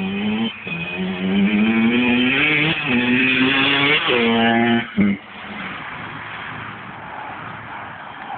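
Kawasaki KX85 two-stroke 85cc dirt bike engine revving hard up through the gears, its pitch climbing with short breaks at each shift, loudest as it passes close by about four seconds in. About five seconds in the engine note drops off sharply to a fainter, rougher sound as the bike moves away.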